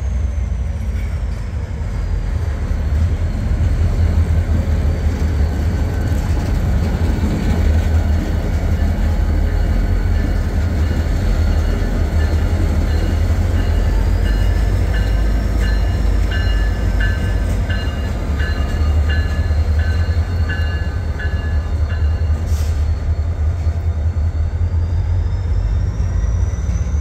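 Three EMD GP40-2 diesel-electric locomotives, each with a turbocharged 16-cylinder engine, passing close by at low speed with a side dump car: a steady, loud, deep engine rumble. Over it runs a faint high whine that dips and rises again, and a run of short repeated high squeaks comes about two-thirds of the way through.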